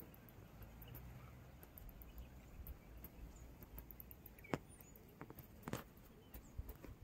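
Quiet outdoor ambience with a few faint scattered clicks, the clearest about four and a half seconds in and again near six seconds, and a couple of tiny high chirps.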